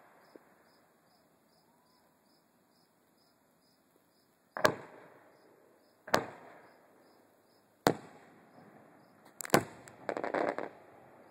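Distant aerial fireworks shells bursting: five sharp bangs in the second half, each trailing off in a rolling echo, the last two almost together, then a short burst of crackling near the end. Insects chirp at a steady rhythm underneath.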